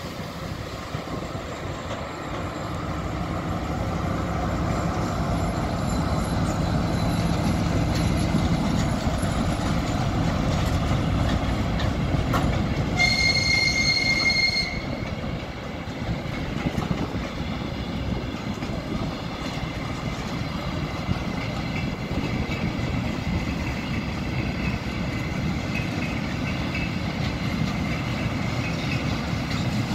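M62 diesel locomotive's two-stroke V12 diesel running as it hauls a maintenance train past, with the steady rumble of the wagons' wheels on the rails. About halfway through a high wheel squeal rings out for a second or two, the loudest moment, with fainter squeals near the end.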